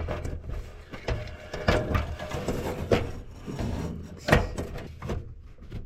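Hard-drive cage being slid into a computer case: scraping with a run of irregular knocks and clicks, the sharpest about four seconds in.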